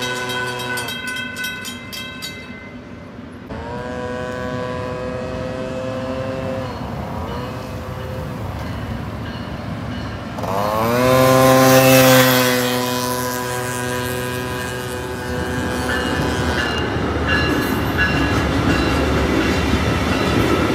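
Multi-tone horn of a passenger train sounding a series of blasts. One ends about a second in, then come a long blast, a short one and a final long, loudest one, the long-long-short-long warning for a road crossing. After that the train rolls past with a steady rumble and rail clatter.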